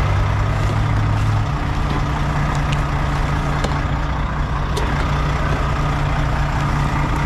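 A vehicle engine idling steadily, a low, even hum that holds its pitch throughout. A few light clicks sound over it.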